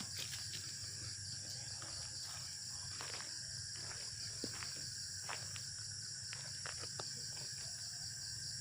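Crickets trilling steadily in a continuous high-pitched night chorus, with a few faint scattered ticks.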